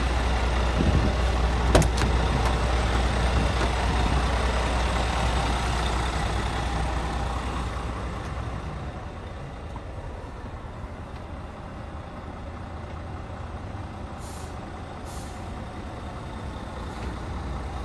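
Scania R440's 13-litre inline-six diesel idling with a steady low rumble, heard beside the cab and then, from about eight seconds in, quieter from inside the cab. A sharp click comes near two seconds in, and two short hisses near the end.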